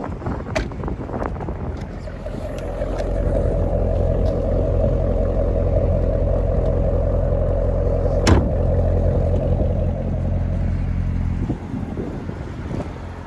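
Supercharged 6.2-litre LT4 V8 of a Corvette Z06 idling, heard from the exhaust: a steady low drone that swells louder a few seconds in and drops back near the end. A single sharp thump comes about two-thirds of the way through.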